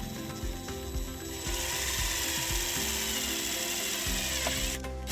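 A power drill driving a self-tapping screw into the vehicle body to ground the trailer harness's white wire. The motor runs from about a second and a half in until near the end, its pitch falling slightly, after some clicking at the start.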